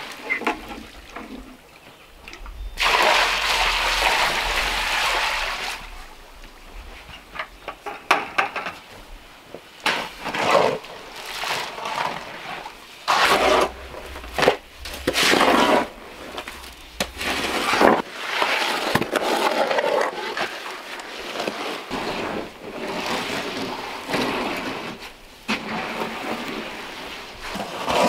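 Water pouring from a plastic bucket into a plastic sled tub of dry cement mix for a few seconds near the start, then a hoe scraping and sloshing through the wet mix in repeated strokes, one every second or two.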